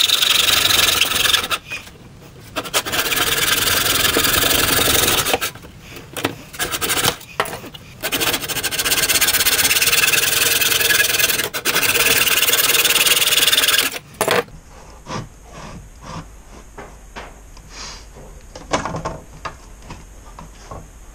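Hand saw working back and forth in a miter box, cutting screen-kit frame stock to length: steady scraping strokes with a few short pauses, stopping about two-thirds of the way through. Quieter scattered knocks and taps of the pieces being handled follow.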